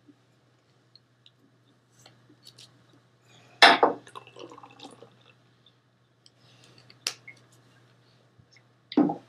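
Small objects being set down and handled on a desk: a few sharp knocks and clinks, the loudest about three and a half seconds in with a short ring after it, and two more later, over a faint steady hum.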